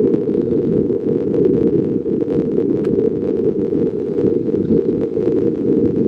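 Strong wind buffeting the microphone: a heavy, continuous low rumble that covers all other sound.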